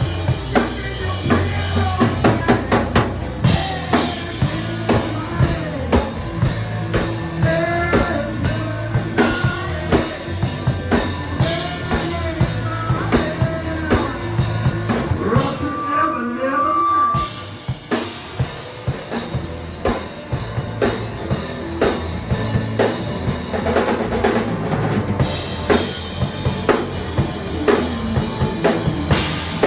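Music with a drum kit playing a steady beat, bass drum and snare under pitched instruments; the drums drop out briefly about halfway through, then come back.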